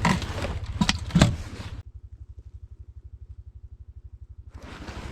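A motor idling with a steady, fast low pulse, with a few sharp knocks and clatter near the start. For a few seconds in the middle only the low pulse is left.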